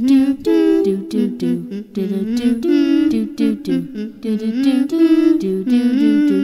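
A single voice humming a wordless tune, unaccompanied, in short stepping notes.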